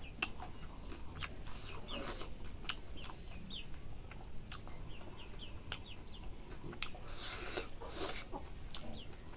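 Chickens clucking, with many short high chirps. Soft clicks and smacks come from someone eating rice by hand, and there is a brief rustle about seven seconds in.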